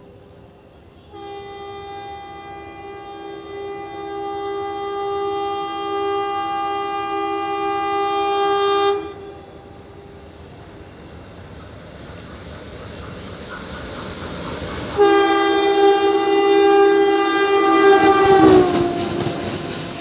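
Twin WDM3D Alco diesel locomotives sound their two-note horn on the approach: one long blast of about eight seconds, then a second blast of a few seconds that drops in pitch as the locomotives pass. Between and after the blasts the rumble of the oncoming train grows louder.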